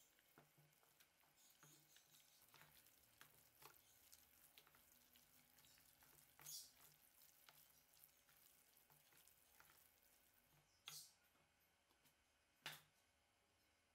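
Faint, irregular wet squishing and patting of hands kneading sticky ground-chicken filling in a stainless steel bowl, with three sharper knocks: one about halfway and two near the end.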